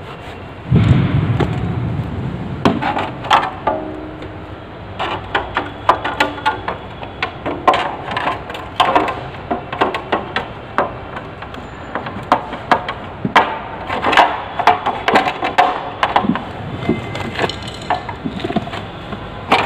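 Hands working on a motorcycle's rear chain cover and sprocket area: a duller thump about a second in, then many irregular clicks and light knocks of parts being handled and fitted.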